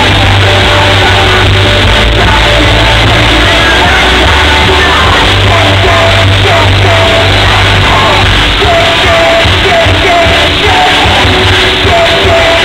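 Pop-rock band playing loud live music with singing and heavy bass, picked up from inside the crowd by a camera microphone driven near overload, so it sounds distorted. Yelling and screaming mix in with the vocals.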